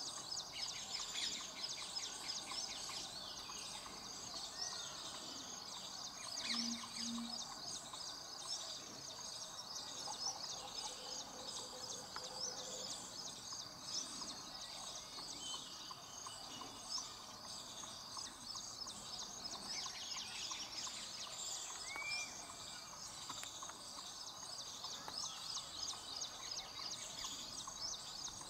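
Open-field ambience: many small birds chirping in a continuous, high-pitched chorus, with insects calling underneath.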